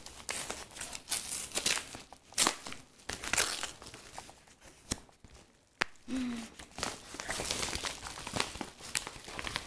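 A padded mailer envelope being torn open and handled, its paper crinkling and rustling in fits and starts, with a short lull and a single click about five to six seconds in.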